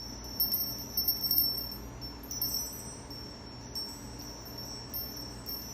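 Indian bells jingling and ringing: many light strikes over high, sustained ringing tones. The strikes are busiest in the first second and a half.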